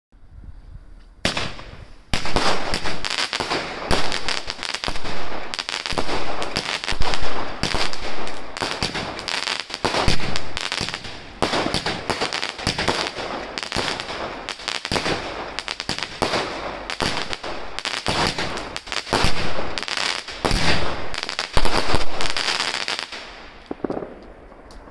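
Black Cat Triple Threat 25-shot, 18 mm Roman candle cake firing: after a quiet start a quick succession of shots and bursts begins about two seconds in, keeps up for some twenty seconds, then dies away near the end.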